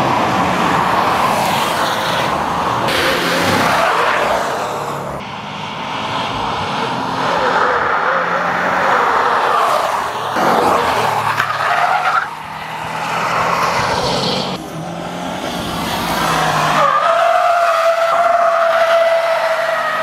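2015 Subaru WRX STI's turbocharged flat-four engine running hard through a corner, with tyres squealing as the car drifts. The sound changes abruptly several times between takes, and a long, steady tyre squeal holds near the end.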